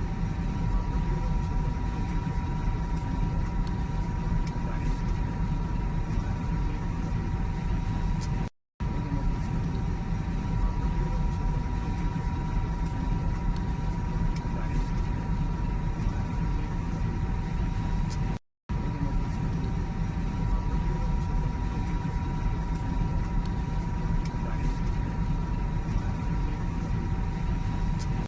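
Steady aircraft cabin noise: a low rumble with a faint steady whine, broken by two split-second dropouts.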